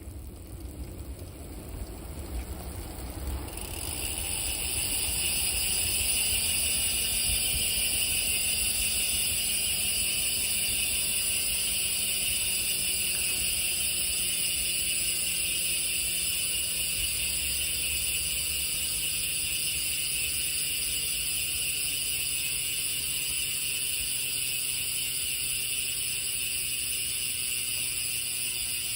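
Bicycle rear hub freewheeling: the ratchet's clicks run together into a high buzz that swells in over the first few seconds, then slowly drops in pitch as the spinning wheel coasts down.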